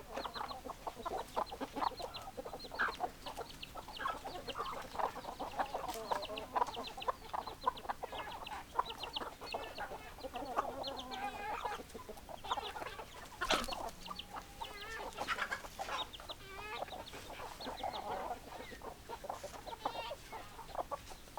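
A flock of chickens clucking continuously, many short overlapping clucks from several birds at once, with one sharp knock about two-thirds of the way through.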